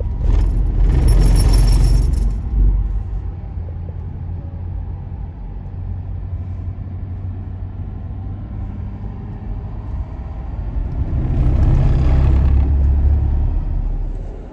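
Steady road and engine rumble of a Ford pickup at highway speed, heard inside the cab. It swells twice into a louder rush: near the start and again about eleven seconds in.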